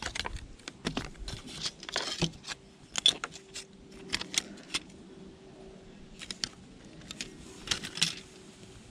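Thin plastic film and reflective foil layers from a digital clock's LCD screen crinkling as they are peeled apart and handled, mixed with clicks and taps of small plastic parts being handled and set down. The handling is busiest in the first few seconds, with another short cluster of clicks near the end and a faint steady hum underneath.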